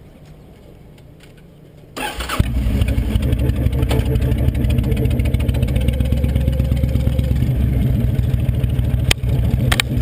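A motorcycle engine starts about two seconds in, catches quickly, and then runs loudly with a steady low pulsing beat as the bike pulls away.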